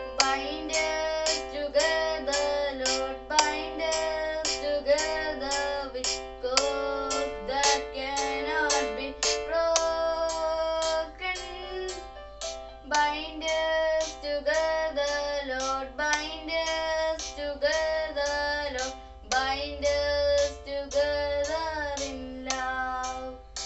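A boy singing a prayer song with instrumental accompaniment: a steady rhythm of plucked notes under the sung melody.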